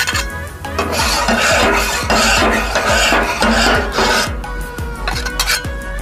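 A flat steel scraper rasping across a large round iron tawa griddle in repeated strokes, loudest from about a second in until just past four seconds.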